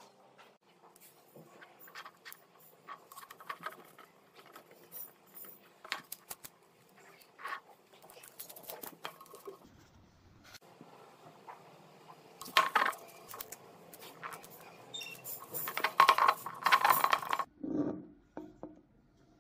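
Hands handling and turning a cylindrical can with a metal rim: scattered light clicks and taps, with louder rubbing and scraping about twelve seconds in and again near the end.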